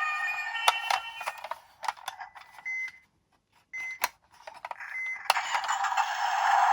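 Tinny electronic toy sounds with scattered clicks and clatter. The sound fades out, two short high beeps come either side of a brief silence, and the tinny sound with steady tones comes back near the end.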